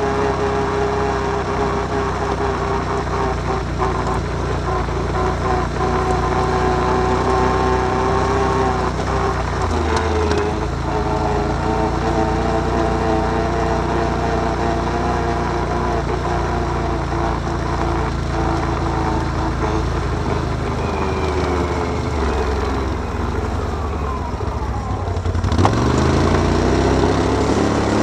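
Can-Am Outlander 1000's V-twin engine running as the ATV is ridden. Its pitch dips about ten seconds in and sinks as the quad slows, then rises sharply near the end as it revs up and accelerates.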